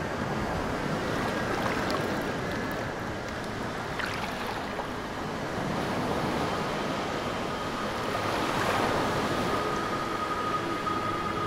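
Sea ambience: a steady wash of waves and surf. A faint, high, steady tone comes in about two-thirds of the way through.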